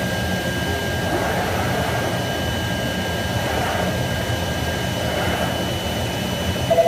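IECHO BK3 digital cutting table at work: the steady rush of its vacuum hold-down blower with the cutting head traversing the gantry, plus two faint steady high-pitched whines.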